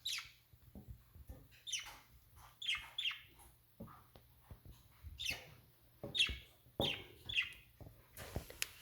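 Pet budgerigars chirping: a string of short, sharp calls, each sweeping downward in pitch, with soft knocks in between.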